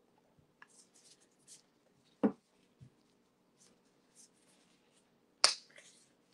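Handling noise as gloved hands layer acrylic pouring paint into a plastic cup: soft rubbing and scraping, with two sharp knocks, one about two seconds in and a louder one about five and a half seconds in.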